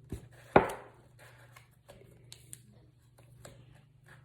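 Masking tape being worked around the end of a cardboard paper towel tube: a loud knock against the table about half a second in, then light rustling and small clicks of tape and paper being handled.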